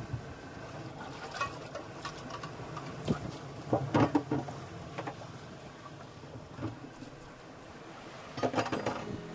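Pots and dishes clinking and clattering now and then as they are washed by hand in a bucket in a sailboat's cockpit, with a busy run of clatter around four seconds in and again near the end. Underneath, a steady rush of wind and water from the boat sailing at speed.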